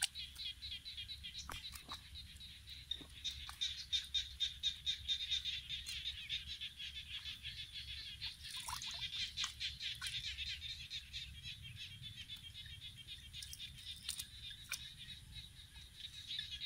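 Steady, rapid pulsed chirping of wild creatures, about six pulses a second, with a few short splashes of muddy water as a hand gropes in a water-filled hole.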